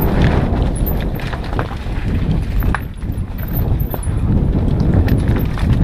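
Freeride mountain bike descending a rocky trail: tyres crunching over loose stones while the bike rattles and knocks over the bumps, over a steady low rumble.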